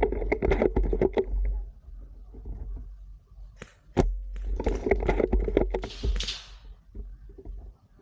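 Spring bolt-action airsoft sniper rifle fired once, a single sharp snap about four seconds in. Before and after it come quick rattling clicks as the bolt is worked back and forth to cock it.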